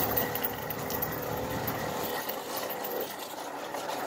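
A 1997 Kinetic moped's 49 cc two-stroke engine running steadily while the moped is ridden. Its tone eases off about three seconds in.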